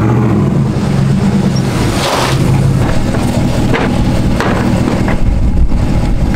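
Pickup truck engine running steadily as the truck drives off, followed by a few knocks and thumps.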